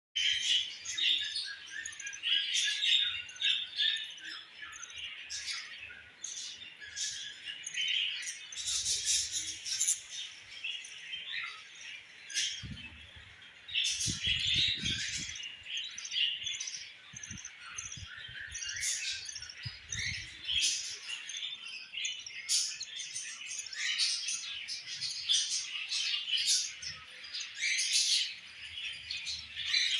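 Budgerigars chirping and chattering in a dense, continuous stream of short, high calls, with a few low thumps in the middle.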